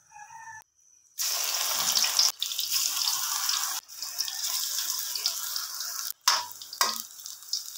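Hot oil sizzling loudly as handfuls of chicken and potato pakora batter are dropped into a karahi and turned with a spatula. The hiss breaks off abruptly a few times.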